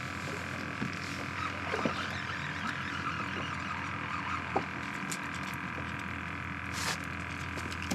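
A steady mechanical hum made of several fixed tones, with a few faint clicks and a short hiss about seven seconds in.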